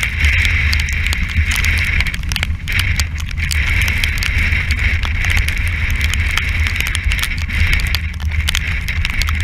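Strong wind buffeting the camera's microphone at sea, a steady heavy rumble with a constant hiss. Rushing water along the hull and many small crackles of spray hitting the camera housing run through it.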